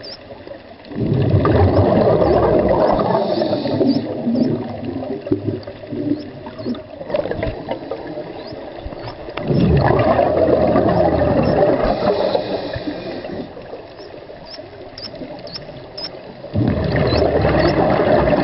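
Scuba diver breathing out through a regulator underwater: three long bubbling exhalations about eight seconds apart, with quieter inhalations between them.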